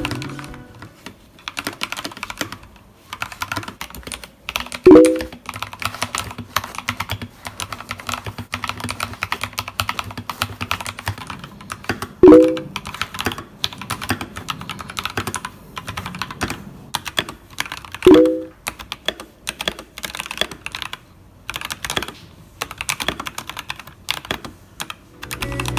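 Steady stream of typing on Skyloong Solar System gasket-mounted mechanical keyboards, their switches cushioned by a soft liquid-silicone gasket, giving dense irregular key clacks. Three brief, louder pitched thunks stand out, about 5, 12 and 18 seconds in.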